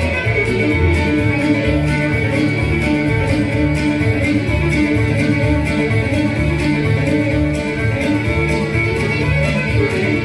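Lively jig tune played on fiddle with strummed guitar backing, at a steady quick beat.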